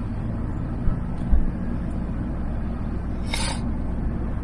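Van engine and road noise inside the cab, a steady low rumble. A single low thump comes a little over a second in, and a short hiss about three seconds in.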